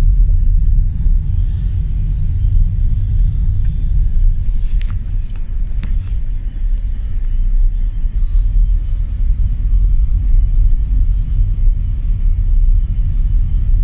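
Steady low rumble of a car driving downhill, heard from inside the cabin, with a few sharp clicks about five seconds in.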